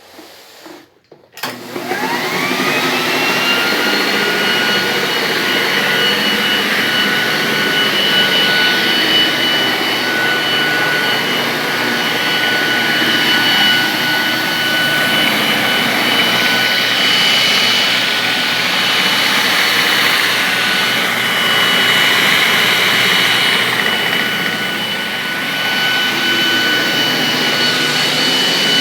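Walita 400T (Philips HL3633) floor buffer-vacuum cleaner switched on: after a click, its flat disc-shaped electric motor and suction fan spin up with a rising whine about a second and a half in. They then run steadily, a constant whine over a rushing of air.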